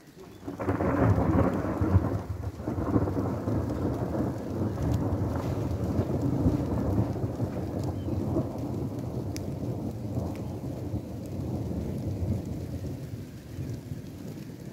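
A long roll of thunder that breaks suddenly about half a second in, then rumbles on low and heavy for many seconds, slowly easing off near the end.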